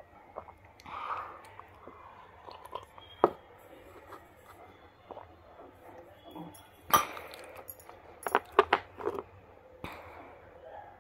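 Slate pencil being chewed and crunched between the teeth: scattered crisp crunches and clicks, the loudest about seven seconds in, followed by a quick run of crunches a second or so later.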